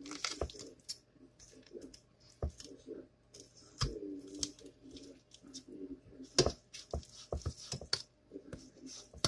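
Carving knife and fork cutting meat off a roast turkey in a metal pot: irregular clicks and scrapes of the utensils against bone and the pot.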